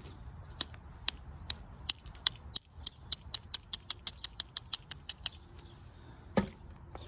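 Flintknapping: a copper-tipped billet tapping the edge of a stone blade as it is thinned, giving sharp stone-on-metal clicks, first scattered, then a quick run of about six a second, and one heavier hit near the end.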